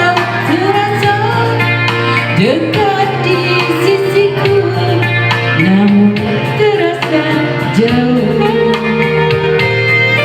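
A female voice singing a song with long held notes that slide between pitches, over instrumental backing music.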